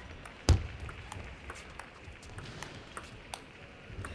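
Table tennis rally: a celluloid ball clicks in quick alternation off the rubber-faced bats and the tabletop, with one loud knock about half a second in.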